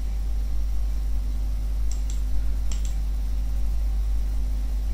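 Steady low electrical hum of the recording setup, with a few soft clicks about two and three seconds in, typical of a computer mouse advancing lecture slides.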